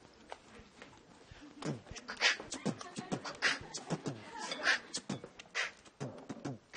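Beatboxing: a run of quick mouth-made clicks, hisses and short vocal hits, starting about a second and a half in.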